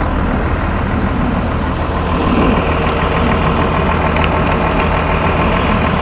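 Caterpillar C7 diesel engine of a Blue Bird All American bus idling steadily, a low, even rumble.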